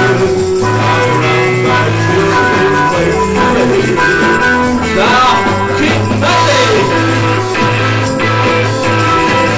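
Rock band playing live, in an instrumental passage led by guitars, with gliding guitar lines about halfway through.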